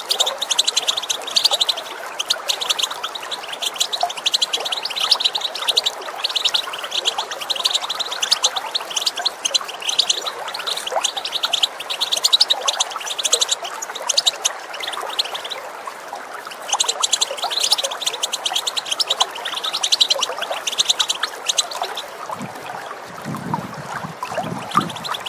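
European goldfinches giving fast, dense twittering calls (the rapid 'tibtibt' chatter), over steady running water. The calls break off briefly about two-thirds of the way through, then start again and fade out near the end, leaving the water.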